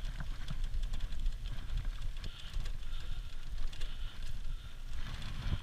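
Dryland dog cart pulled by a malamute team, its wheels rolling over a dirt track, with a steady low rumble and light scattered rattles from the frame.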